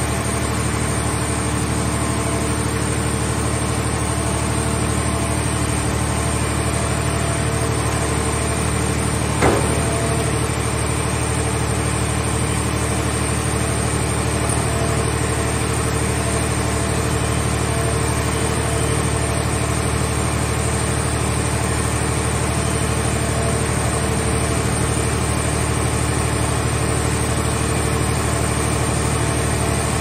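Mobile scrap car baler's hydraulic power unit running steadily with a constant hum as its grab crane loads a car shell; one sharp metal clank about nine and a half seconds in.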